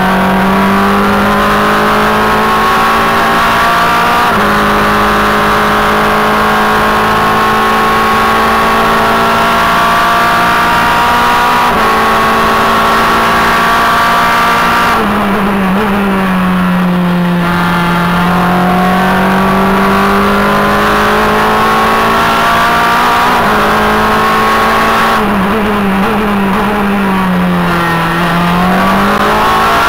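Onboard sound of a Formula Renault 2.0 race car's four-cylinder engine at racing speed, its note climbing through the gears with brief breaks at each gear change. Twice, about halfway and near the end, the note falls away and dips as the car slows for a corner, then picks up again.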